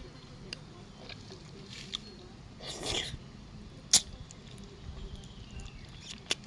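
Eating raw mantis shrimp: scattered sharp clicks and cracks of the shells being handled and bitten, with a short moist rustle near the middle and one loud click about four seconds in.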